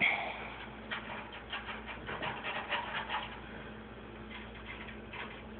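Quick, light clicks and scratches from hands working inside a washing machine drum, most of them between about one and three seconds in, then fading. A faint steady hum runs underneath.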